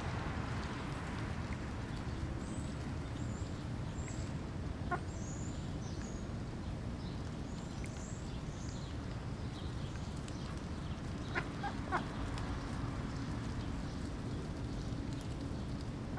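Mallard ducks feeding, giving a few short, soft calls: one about five seconds in and two close together a little past halfway, over a steady low rumble. Faint high chirps come and go in the first half.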